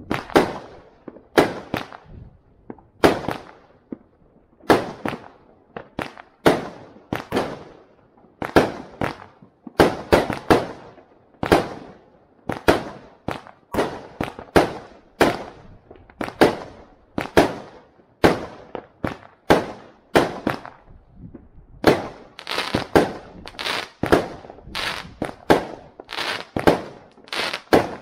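Aerial fireworks going off in a fast series of sharp bangs, each trailed by a short echo, about one to two a second and coming faster over the last several seconds.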